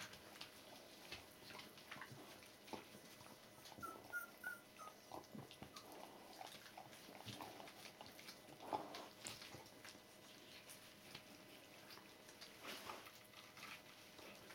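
Two-week-old Border Collie puppies squeaking faintly, with a quick run of four short high squeaks about four seconds in. Soft rustling and clicks from the puppies and the adult dog moving about on fleece bedding.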